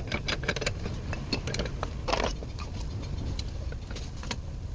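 Irregular light clicks, taps and a short scrape of hand work on a motorcycle inner tube's valve, thinning out after the first couple of seconds, over a low steady rumble.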